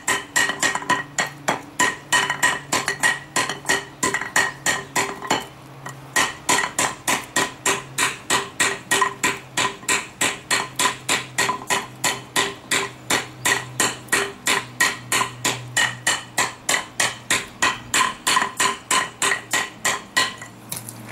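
A steel hand hammer strikes a hot steel pipe laid on a rough concrete block in steady rhythmic blows, about three a second, each with a short metallic ring, with a brief pause about five and a half seconds in. The blows press the concrete's pitted face into the pipe to forge a tree-bark texture.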